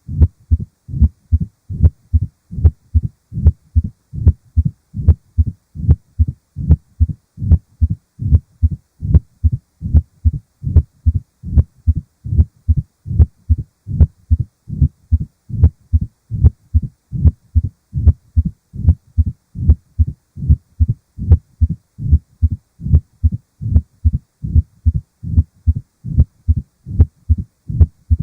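Heart sounds of mitral stenosis heard through a stethoscope: low knocks repeating in a steady rhythm with every heartbeat. They are the loud first heart sound, the mitral opening snap just after the second sound, and the low diastolic murmur heard best at the apex.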